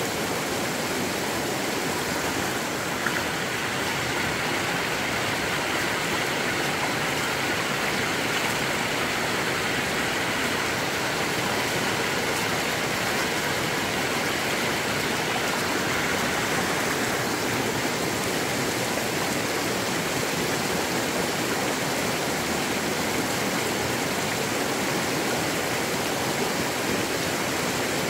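Steady rushing of a stream or river, a continuous even noise, with one small click about three seconds in.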